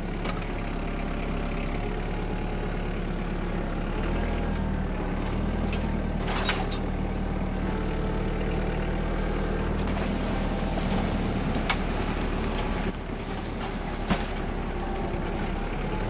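Kubota tractor's diesel engine running steadily as it drives through the woods under the load of a skidded log, its note shifting about four seconds in and dipping slightly near the end. A few short knocks sound over it.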